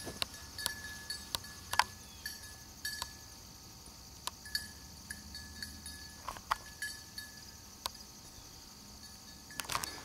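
Footsteps through dry field grass and brush, with scattered rustles and clicks and a few faint metallic jingles, over a steady high hiss.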